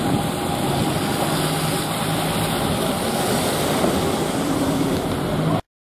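Double-decker bus engine running as the bus pulls away, over a steady rush of street noise. The sound cuts off abruptly near the end.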